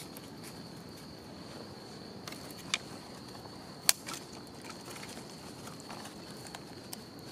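Small wood fire crackling in a TOAKS BP wood-burning stove, with two sharp pops a little under three and four seconds in, the second the louder. Under it runs a steady high-pitched insect call.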